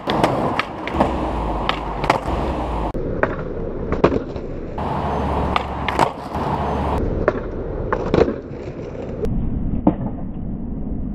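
Skateboard wheels rolling over pavement with a steady rumble, broken by repeated sharp clacks of the board striking the ground. The background changes abruptly several times, as short clips cut from one to the next.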